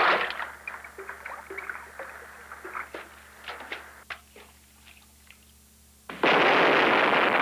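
Cartoon sound effects: a burst of noise, then scattered clicks and knocks that thin out and fade. About six seconds in, a sudden loud, steady rushing noise starts.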